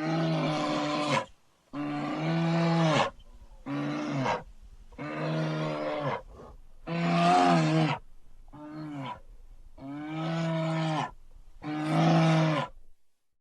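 Bear roaring in a series of eight calls, each about a second long, holding a steady low pitch and dropping off at the end, with short pauses between them.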